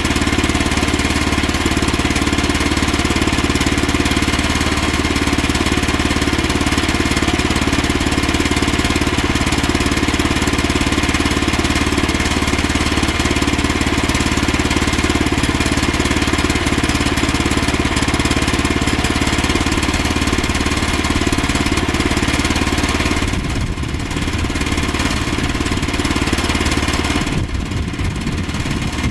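Small gasoline engine of a Woodland Mills HM122 portable sawmill running steadily. About 23 seconds in the sound drops a little, and near the end its steady low hum turns rougher and uneven.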